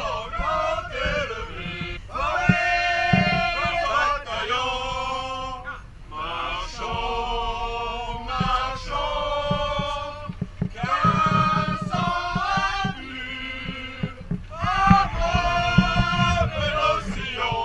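A group of people singing together in long held notes, phrase after phrase with short breaks, with wind rumbling on the microphone.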